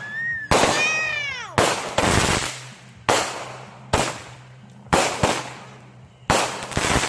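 Consumer fireworks cake firing: about seven sharp bangs roughly a second apart, each trailing off. A falling whistling tone sounds about a second in.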